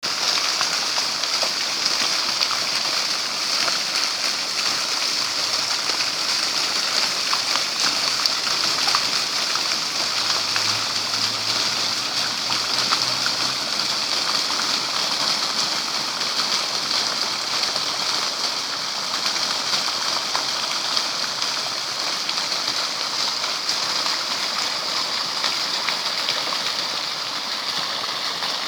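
Running water splashing steadily and without a break.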